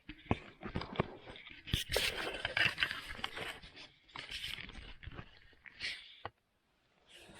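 Irregular scraping, crunching and rustling handling noises with many sharp clicks and snaps, cutting out suddenly for about half a second near the end.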